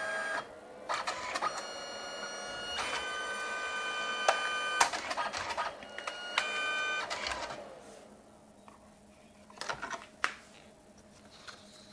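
Canon Selphy CP1300 dye-sublimation photo printer printing: a motor whine holding several steady pitches, with clicks of the paper-feed mechanism, for about six seconds. It then winds down and stops, leaving a couple of soft clicks as the print is handled.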